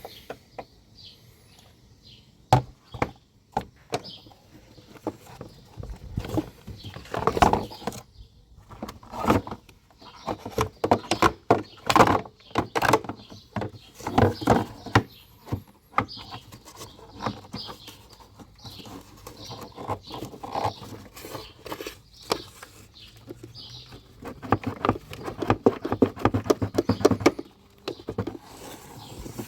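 Irregular clicks, knocks and short rattles of hands working the air filter housing and filter element in a Mercedes W212's engine bay during an air filter change, busiest in the middle and again near the end.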